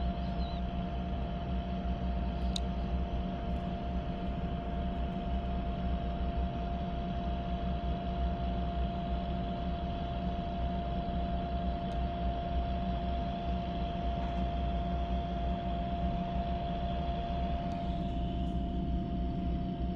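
Steady low drone of drilling-rig machinery, with one constant hum tone over the rumble. This is the continuous round-the-clock noise, measured at about 50 to 60 dBA.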